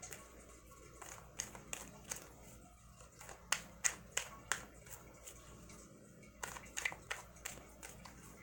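A deck of tarot cards being shuffled by hand in an overhand shuffle: quick runs of sharp card slaps and flicks, a few a second, coming in three or four spurts.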